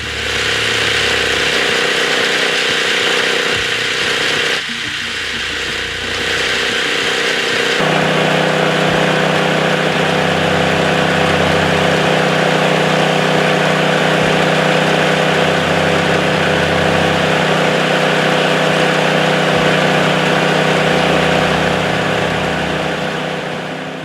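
Sawmill running unloaded on a test run, its blade spinning on freshly re-greased bearings with a steady mechanical hum. About eight seconds in, the sound shifts to a louder, deeper steady tone.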